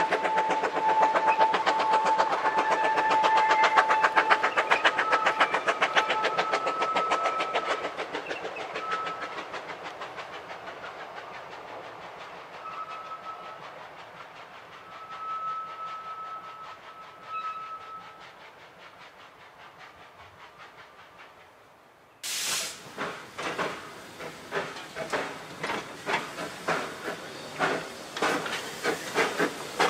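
Vale of Rheidol narrow-gauge 2-6-2T steam locomotives working a train up the grade: rapid exhaust beats with a long held high tone at first and short high tones later, fading as the train draws away. About two-thirds of the way through, the sound changes abruptly to loud, slower exhaust beats from loco No. 7 close by, with some steam hiss.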